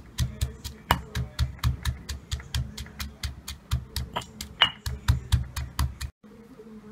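Stone pestle pounding chillies, shallots, garlic and anchovies into a paste in a stone mortar: steady strikes about four a second, stopping abruptly near the end.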